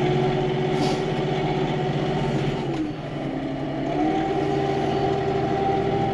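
Farm tractor engine running steadily while the tractor plows snow with its blade. Its pitch drops about three seconds in and comes back up about a second later.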